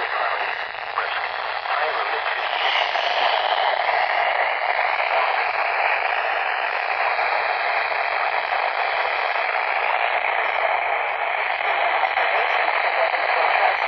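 Handheld weather radio's speaker hissing with steady static on a weak, distant NOAA Weather Radio signal, with a faint synthesized voice buried in the noise.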